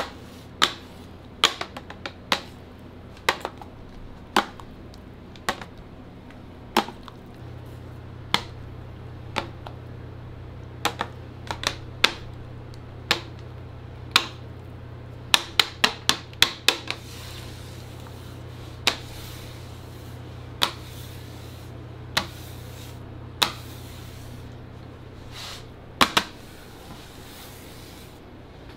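Metal spatula and scraper clacking against each other and against a stone slab as melted chocolate is spread and gathered for tempering (tabling). Sharp, irregular taps come about once a second, with a quick run of them about halfway through, over a steady low hum.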